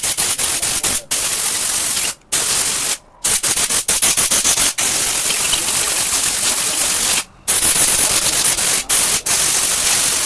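Pressurised jet hissing in long bursts, cut off and restarted several times with quick stuttering pulses between, as the fuel pump motor of a Pulsar NS160 is sprayed clean.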